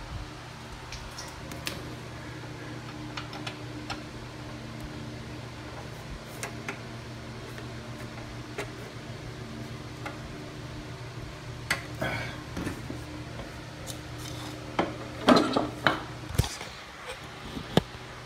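Metallic clinks and rattles of hand work on a push mower's brake cable and fittings, sparse at first and louder and more frequent in the later part, over a steady low hum.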